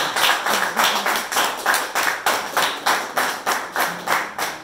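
Hand claps close to the microphone, evenly spaced at about three a second and slowly getting softer: applause for the song just finished.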